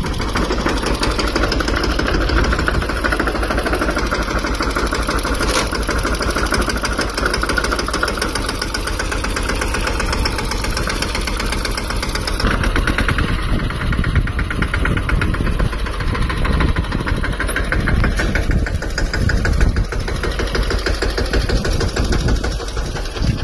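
Mahindra Yuvraj 215 tractor's single-cylinder diesel engine running steadily, in a fast, even train of firing beats. Its sound changes a little about halfway through.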